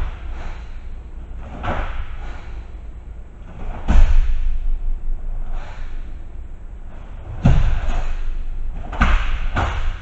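A karateka's sharp strikes and stances during a kata: about five sudden thumps and snaps from the gi and bare feet on the mat, the loudest about four seconds in and three more close together near the end.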